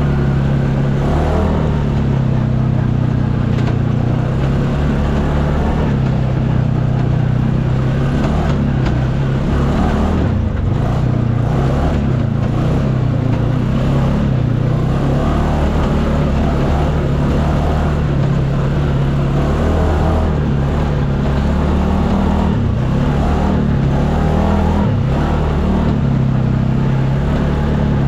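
UTV (side-by-side) engine running under way at a fairly steady speed, its drone wavering slightly in pitch, with rough noise from the ride over it.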